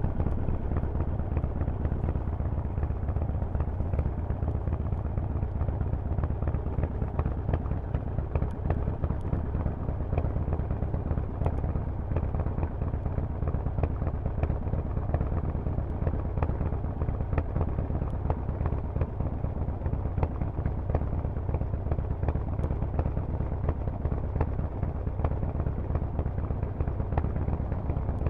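Harley-Davidson Forty-Eight's air-cooled 1200 cc V-twin running steadily through Vance & Hines exhaust pipes, a deep, even exhaust note.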